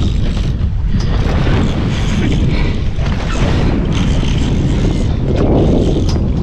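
Wind buffeting the camera microphone on an open boat at sea: a loud, steady rumbling rush with the wash of the sea against the hull.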